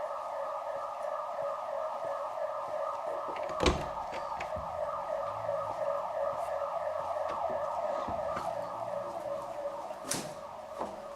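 An electronic building alarm siren sounds in fast, repeating pitch sweeps. A sharp knock comes about a third of the way in, and another near the end.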